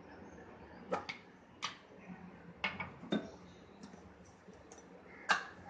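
Kitchen things being handled and set down on a counter beside a steel bowl: several separate sharp clinks and knocks, a small glass among the items, with the loudest knock about five seconds in.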